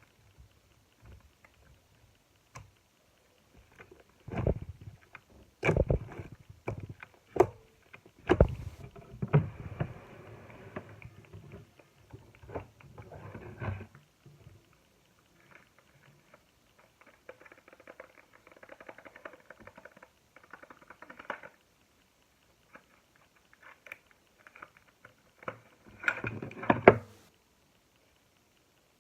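Slime being squished: irregular wet squelches and sharp sticky pops in uneven clusters, with a quieter stretch in the middle and the loudest burst near the end.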